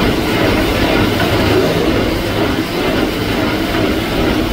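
Steady, loud mechanical rumble of kitchen machinery running without a break.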